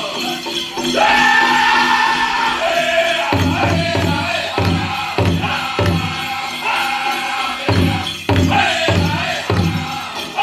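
Powwow drum group performing a men's chicken dance song: high-pitched group singing, joined a few seconds in by steady, evenly spaced beats on the big powwow drum, a little under two beats a second.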